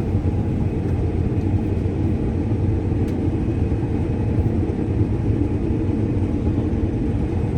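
Combine harvester running steadily under load while cutting wheat, a dense even engine and machinery drone.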